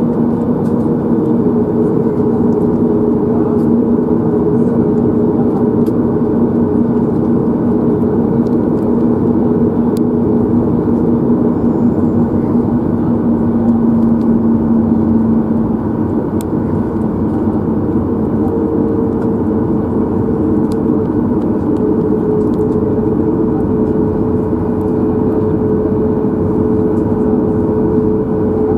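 Cabin noise of a Boeing 737 MAX 8 taxiing, heard from a window seat over the wing: its CFM LEAP-1B engines at idle give a steady hum with a couple of held tones, the lower tone fading about halfway through.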